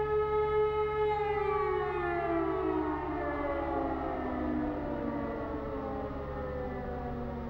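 E57 electromechanical civil-defence siren ending its steady all-clear (Entwarnung) tone. About a second in, the held note gives way to a slow, falling wind-down as the rotor coasts to a stop.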